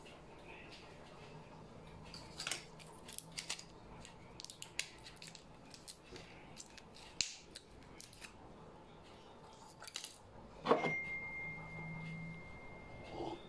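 Scattered light clicks and clinks of small objects being handled, then a knock followed by a steady, thin high-pitched tone for nearly three seconds.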